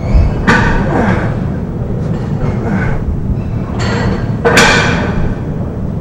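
Loaded barbell being worked through deadlift reps: a few short thuds and bursts, the loudest about four and a half seconds in, over a steady low rumble of gym room noise.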